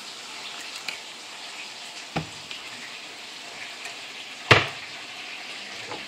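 Lemon garlic butter sauce with honey sizzling and bubbling in a pot, a steady crackling hiss. Two sharp knocks cut through it, the louder one about four and a half seconds in.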